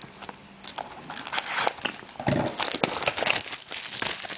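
Hands handling and opening a cardboard box of trading cards: a run of irregular clicks, knocks and rustles of cardboard and packaging.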